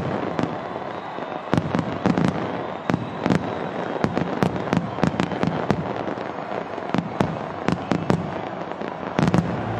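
Fireworks going off: a rapid, irregular series of sharp bangs over a continuous crackling haze.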